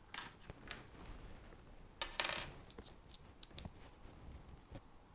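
Small clicks and ticks of a plastic key fob and a small Phillips screwdriver being handled, with one louder, brief rattling scrape about two seconds in.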